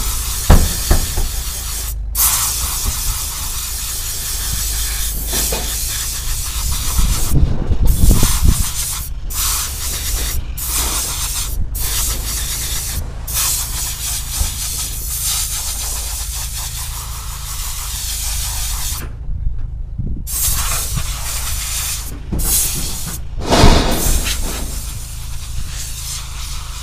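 Compressed air hissing as a blow gun blasts dust out of a truck's paper air filter element, in long blasts cut by brief pauses as the trigger is let go, the longest pause about two-thirds of the way through. A low steady rumble runs underneath.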